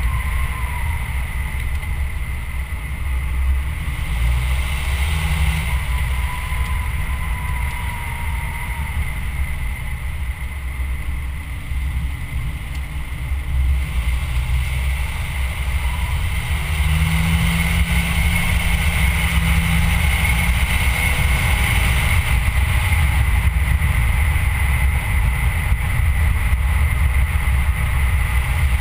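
Rumbling wind and road noise from a moving vehicle, picked up by a low-mounted camera microphone while driving, with a thin steady high whine. It gets louder about two-thirds of the way through.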